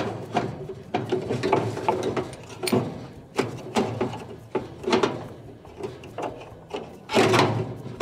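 Plastic dryer blower wheel being slid into its sheet-metal blower housing and worked onto the drive motor shaft: irregular clicks, knocks and scrapes of plastic on metal, with a louder rattle about seven seconds in.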